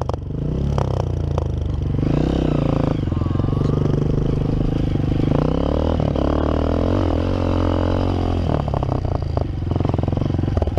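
Honda CRF230F dirt bike's single-cylinder four-stroke engine running under load as it is ridden, revs rising and falling with the throttle. A run of short clattering knocks comes near the end.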